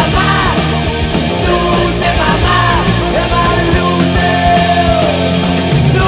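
Heavy metal song from a demo recording, a full band playing, with a lead line bending up and down in pitch over the drums.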